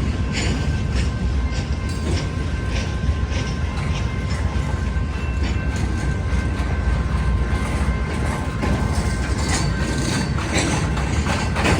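Continuous-welded-rail work train rolling past: a steady rumble with frequent irregular clacks and rattles from the wheels and cars, and a thin steady squeal underneath.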